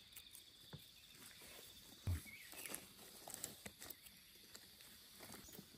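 Faint rustling and scattered light knocks of footsteps and handling on the forest floor, with one soft thump about two seconds in.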